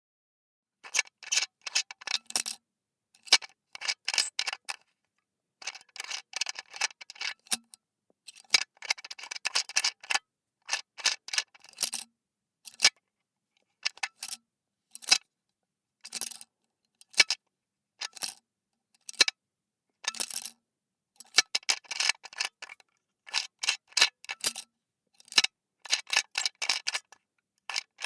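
Screw cap of a flask being opened and closed over and over: short bursts of scratchy thread scraping and sharp clicks, with brief silences between them.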